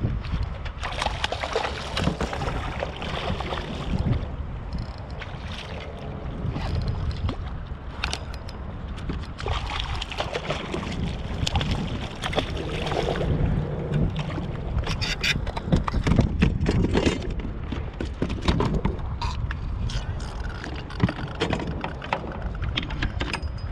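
Wind buffeting the microphone over water sloshing against a kayak hull, with scattered knocks and rattles from gear being handled.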